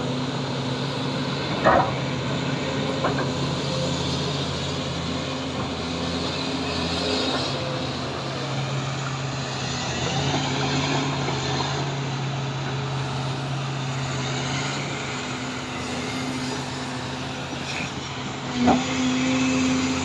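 Kobelco SK380XD hydraulic excavator's diesel engine running steadily under working load as it swings its boom and digs with its bucket, with a sharp clank about two seconds in and another near the end.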